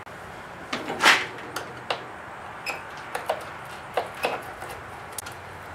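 Scattered clicks and light knocks of a hand tool working the hose clamps on a car's rubber intake air hose, the loudest about a second in.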